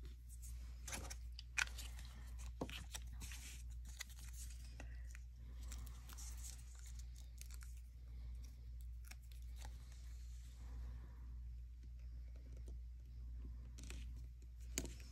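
Faint rustling of paper and cardstock being handled on a craft table, with a few light taps and clicks, over a steady low hum.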